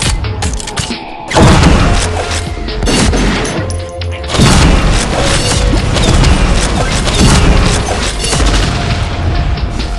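Consumer fireworks going off in a dense, continuous barrage of bangs and crackles, with heavier surges about a second in and again midway.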